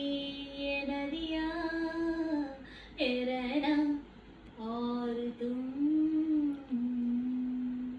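A woman singing unaccompanied, drawing out long, slow notes without words; the last note is held for over a second and then stops.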